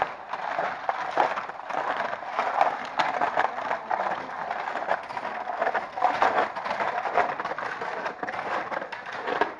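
Footsteps crunching and scraping on icy, packed snow, an uneven run of crackling steps.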